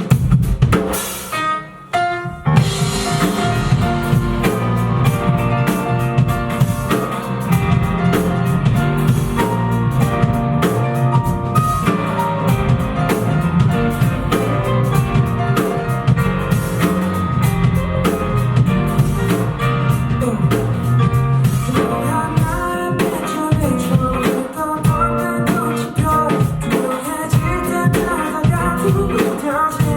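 A live rock band playing: a steady drum-kit beat with bass and guitar, and a singer's voice. There is a short break in the music just before two seconds in.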